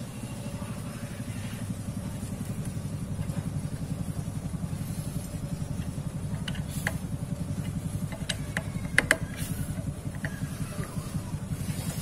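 An engine idling steadily, a rapid even chugging, with a few sharp metallic clicks and taps of a T-handle socket wrench on the clutch nuts between about six and nine seconds in, the loudest near nine seconds.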